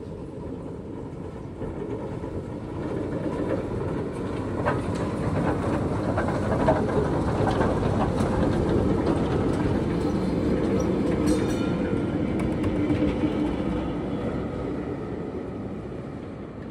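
Vintage two-car electric tram (motor car and trailer) rolling past on street track: the rumble of the wheels and running gear grows, is loudest near the middle as the cars go by, and fades as they move away, with a few sharp knocks from the wheels on the rails.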